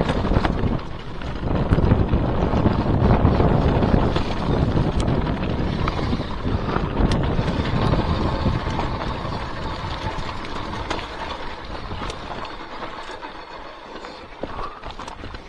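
Wind buffeting the microphone of a camera on a moving mountain bike, mixed with the rattle and clicks of the bike jolting over a rough dirt trail. The wind rumble eases off over the last few seconds.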